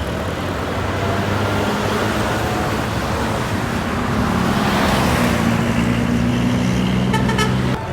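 A bus engine running and drawing closer, its hum growing louder with tyre and road noise swelling about five seconds in as it passes; the sound cuts off suddenly near the end.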